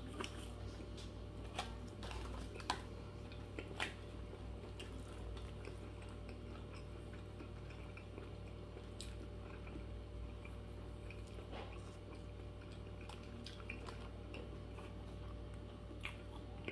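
A person chewing a mouthful of burger with the mouth closed, with scattered short clicks, over a steady low hum.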